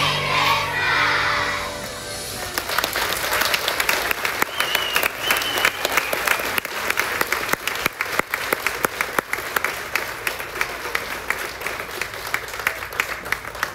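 A children's choir and backing music end a song on a loud final note, then an audience applauds with steady clapping that slowly thins out.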